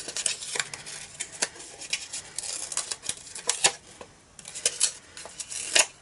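Hands peeling the backing off strips of double-sided adhesive tape on a piece of patterned paper, with irregular crisp crackles and ticks of paper and tape liner being handled.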